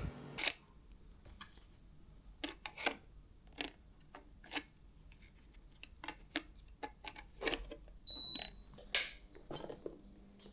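Irregular light clicks and taps, about a dozen spread unevenly, with a short high-pitched beep a little after eight seconds in.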